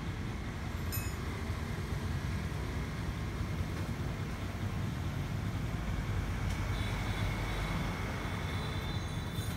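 A vehicle running with a steady low rumble; a faint high whine joins about seven seconds in.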